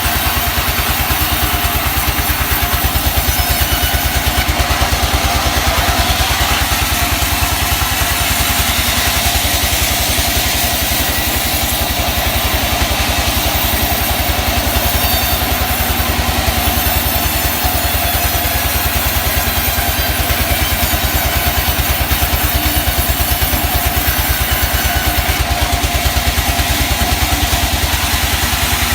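Engine-driven sawmill running steadily: a rapid, even engine pulse with a wide hiss of machinery above it, holding the same load throughout.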